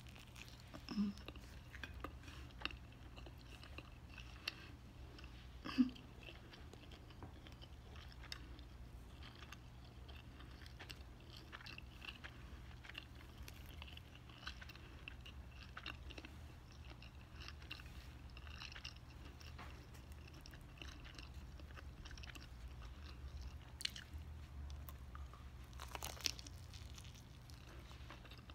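Quiet, close-up chewing of a bite of bacon cheddar cheeseburger pizza, with soft crunches of the crust and small mouth clicks throughout, and a few louder crunches about a second in, near six seconds and near the end.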